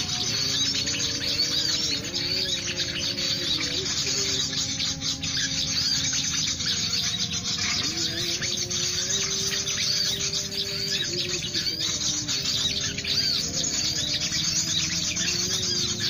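Several small birds chirping and twittering in high, quick calls, over a low held melody that steps in pitch every few seconds.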